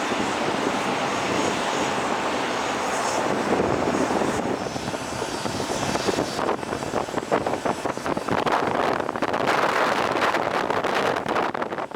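Airliner engines running on the ground at an airport: a loud, steady rushing noise that becomes more uneven and fluttering in the second half.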